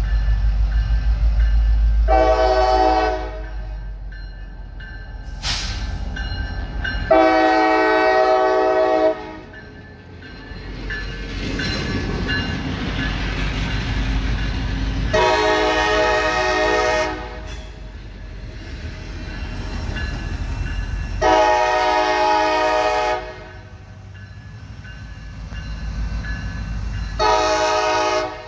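CSX diesel freight locomotive blowing its multi-chime air horn in a series of five blasts, most about two seconds long and two of them shorter, as it approaches and passes a grade crossing. The low rumble of the locomotive and the train rolling by runs beneath the blasts.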